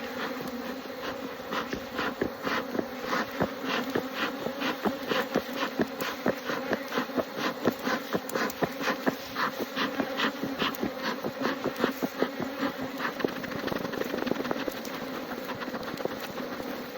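Honeybee colony buzzing steadily, with a run of quick clicks and knocks, several a second, from about two to fourteen seconds in.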